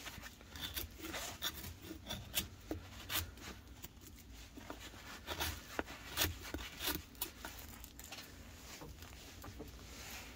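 Knife blade shaving the green bark and cambium off a river birch branch into small shavings: short, irregular scraping strokes with light clicks, thinning out over the last few seconds.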